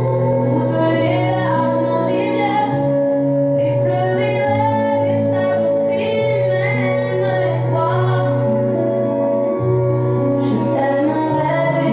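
A song with a woman singing in French over instrumental accompaniment, with a long held note through most of it.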